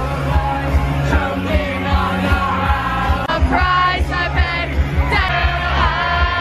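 Loud music with a steady thumping beat and singing, with loud yelled or sung cries about three and a half and five seconds in.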